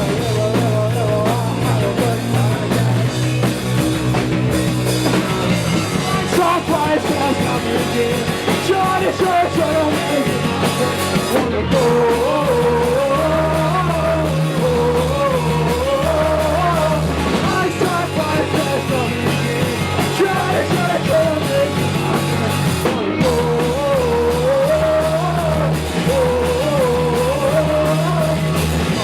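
A rock band playing live, with drums, bass, guitar and singing. A wavering melody line comes to the fore about twelve seconds in.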